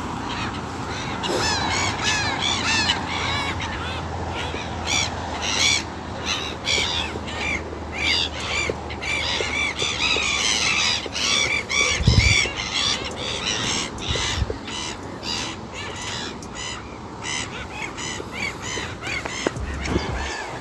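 Wild birds calling and singing, many short rising-and-falling calls overlapping throughout, with a low thud about twelve seconds in.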